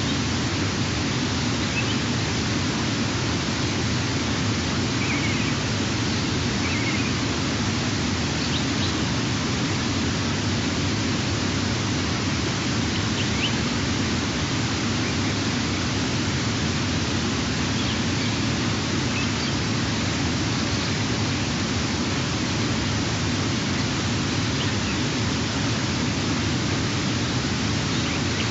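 Steady, even outdoor hiss with a few faint, short, high chirps, a few seconds in and again around the middle.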